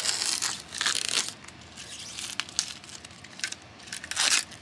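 Clear protective plastic film being peeled off a graphics card's fan shroud and handled, crinkling and tearing in bursts. The loudest stretch is the first second, with another burst near the end.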